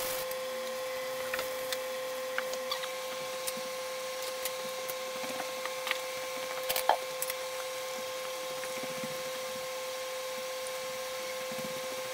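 Paintbrush being dipped and worked against a foil tray of finish and stroked along a wooden threshold ramp: scattered light taps and clicks, the loudest about seven seconds in, over a steady hum.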